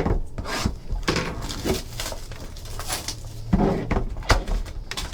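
Trading card box being handled and opened: scattered taps and knocks on cardboard, with short rustling and tearing of packaging.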